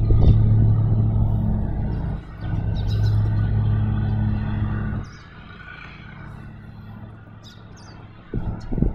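Wind buffeting the microphone as a loud low rumble with a steady low hum under it. The rumble eases off sharply about five seconds in and gusts back near the end, with a few faint bird chirps.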